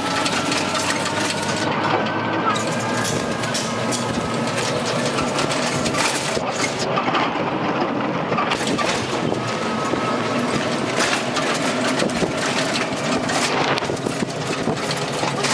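Steady engine and road noise heard from inside a moving vehicle, a constant rush with frequent short rattles and knocks from the vehicle's body.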